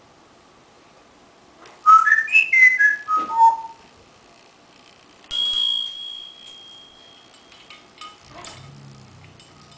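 African grey parrot whistling a quick run of about seven notes that climb and then fall in pitch. A few seconds later comes a sudden ringing note that fades away over a couple of seconds.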